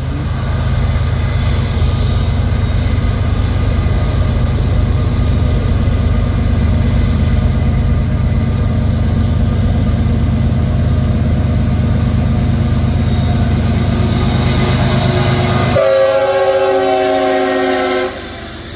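Diesel freight locomotive approaching a road crossing, its engines rumbling and its air horn blowing for the crossing. Near the end, as the locomotive comes alongside, a clear multi-note horn chord sounds for about two seconds and then stops.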